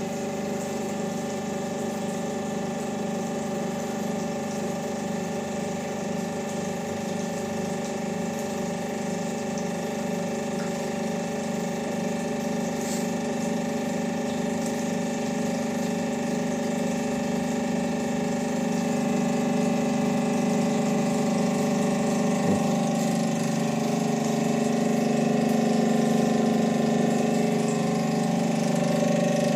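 Hydraulic pump of an ELE International ADR Touch concrete compression testing machine running steadily as it loads a 15 cm concrete cube gradually, not by impact, its hum growing slowly louder as the load builds.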